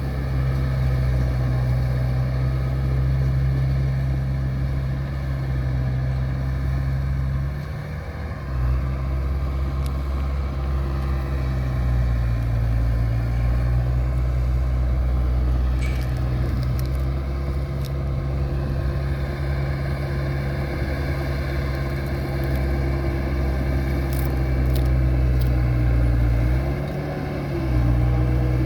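An engine running steadily with a deep hum. The sound dips briefly about eight seconds in and again near the end.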